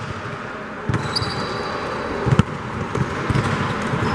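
Basketball bouncing on a gym court floor, a few separate thumps with the loudest about halfway through. Short high squeaks of basketball shoes on the court come about a second in and again near the end, over the steady din of the hall.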